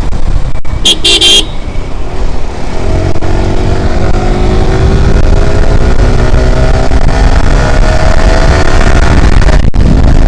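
Kawasaki ZX-10R's stock inline-four engine running under way, its pitch rising slowly over several seconds as the bike accelerates, under heavy wind rumble on the phone microphone. A short horn toot about a second in.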